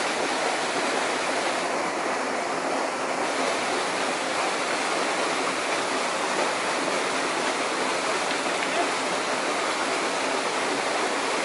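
Steady rushing of river water, an even unbroken wash of noise.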